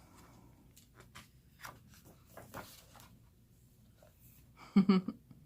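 Glossy photobook pages being handled and turned, with soft scattered paper rustles and taps. Near the end, a short, louder voice-like sound.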